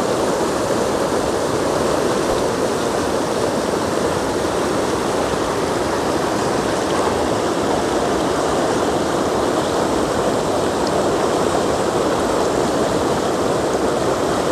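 A mountain river stream flowing, a steady, unbroken rush of water.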